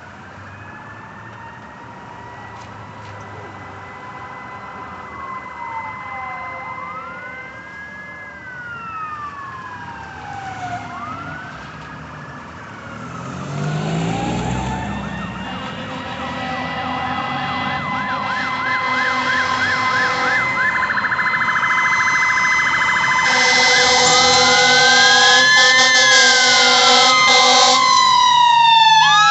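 Fire engine sirens approaching and growing steadily louder: rising and falling wails, a fast yelp about two thirds in, and a steady high tone, with a louder blaring sound joining near the end. A vehicle passes on the wet road about halfway through.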